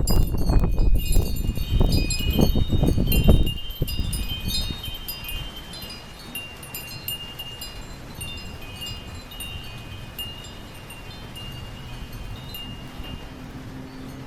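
Metal wind chimes ringing and clanging in strong gusts of wind, with heavy wind buffeting on the microphone. The gust dies away about three and a half seconds in, and the chimes keep ringing more softly.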